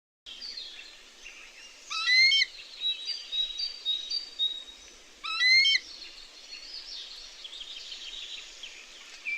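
Bald eagle calling: two loud, high, chattering series of quick piping notes, about three seconds apart, with another short call starting near the end. Fainter songbird whistles and a steady outdoor hiss sit underneath.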